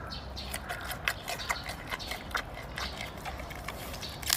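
Giant panda chewing a bamboo shoot: a string of irregular crisp crunches and snaps, several a second.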